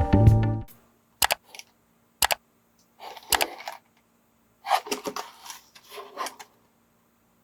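Intro music ending in the first second. Then plastic building-block pieces and their packaging are handled by hand: a few sharp clicks and short crinkly rustles with quiet gaps between them.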